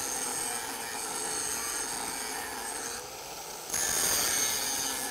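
Angle grinder disc grinding into steel plate with a steady high whine, cutting the back-grind groove along the weld joint, about 1/8 inch deep, and widening it to 3/16 inch. It eases off briefly about three seconds in, then bites in again, louder.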